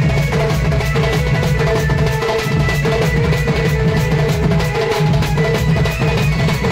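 A folk drum troupe playing a fast, steady rhythm on barrel drums beaten with sticks, with hand cymbals ringing along.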